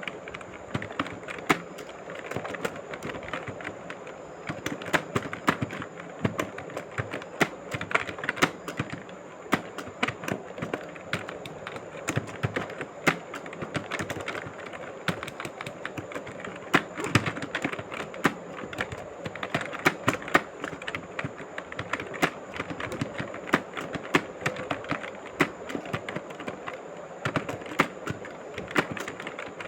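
Rapid typing: a dense, irregular run of key clicks, several a second, without a break.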